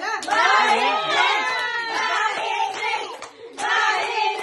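Several people's voices talking and exclaiming over one another.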